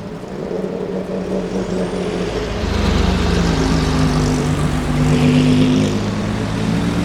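Ferrari supercar engine running at low revs. Its exhaust note swells and gets heavier about three seconds in, the pitch creeping up as it pulls, then easing slightly near the end.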